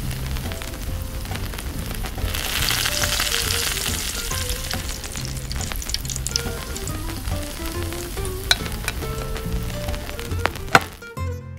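Vegetables sizzling as they stir-fry in a tiny steel wok, the sizzle swelling for a couple of seconds near the start, with a few sharp clicks of a small spoon against the pan. Soft background music runs underneath, and the sizzle cuts off near the end.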